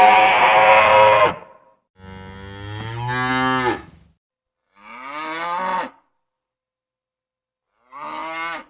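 Cartoon dinosaur call sound effects: a loud harsh call that breaks off about a second in, then three separate pitched, lowing calls with silence between them, the first two rising and then dropping, the last one short.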